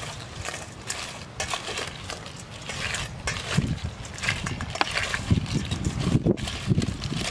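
Crab shell pieces clicking and scraping against a stainless steel bowl as they are handled by hand, with irregular crackles throughout. A few low thumps come in from about five seconds in.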